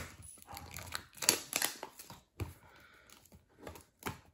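Fingers picking at and tearing a small cardboard cube box to get it open: irregular crinkling, scratching and short tearing sounds, the loudest a little over a second in.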